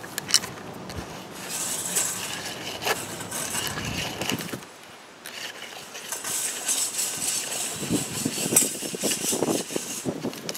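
100-foot J.C. Penney tape measure being wound back into its case, with irregular clicks and rattles from the reel and the blade scraping through a cloth as it reels in. There is a brief pause about halfway through.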